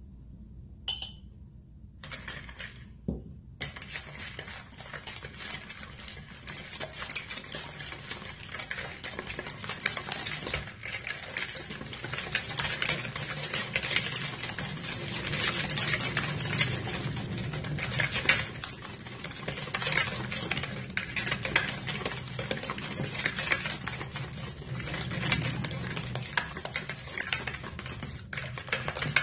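A wire balloon whisk beating a runny egg, sugar and oil mixture in a mixing bowl: a fast, continuous clicking and swishing of the wires against the bowl, starting about three and a half seconds in after a couple of light knocks.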